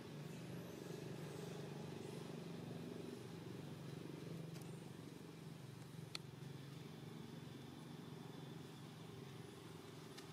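Faint, steady low hum of a motor running, with one sharp click about six seconds in.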